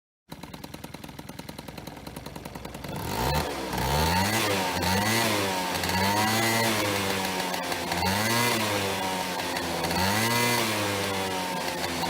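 Honda Dio scooter engine idling with a rapid steady beat, then revved up and down several times from about three seconds in. It carries the growling 'wooon-on-on' of a worn crankshaft bearing.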